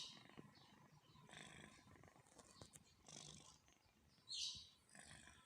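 Domestic cat snoring faintly in its sleep: soft, breathy snores repeating about every second or so, with a louder, wheezier one about four and a half seconds in.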